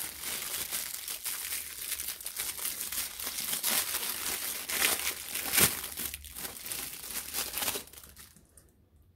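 Thin clear plastic bag crinkling and rustling as it is pulled off a silicone mold by hand, with one louder crackle a little past halfway; it dies away near the end.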